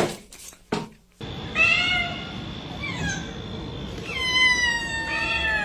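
A cat meowing: a short meow about one and a half seconds in, a couple of small chirps, then a long meow from about four seconds in that slides down in pitch.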